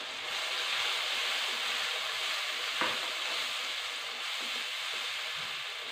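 Tomato purée sizzling in hot oil with fried onions and spices in a non-stick wok while a wooden spatula stirs it: the masala being fried. The sizzle swells as the purée goes in and then slowly eases, with a single tap about three seconds in.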